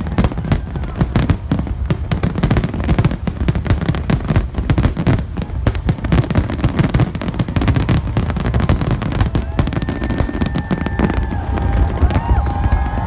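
Fireworks shells bursting in a dense, rapid barrage of bangs. In the last few seconds the bangs thin out and crowd voices and whistles rise over them.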